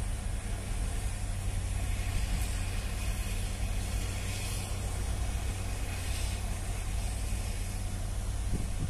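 Heavy-equipment engine running steadily with a low, even drone.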